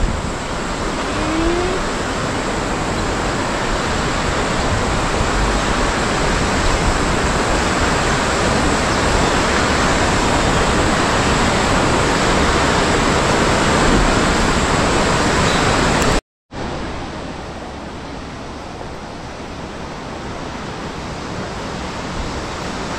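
Steady rushing wind noise, loud and even. It cuts out for a moment about two-thirds of the way through and comes back quieter and duller.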